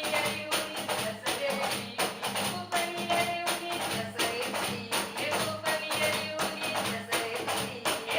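Cape Verdean batuque music: quick, even percussive slaps about four a second, with a melody of held notes over them.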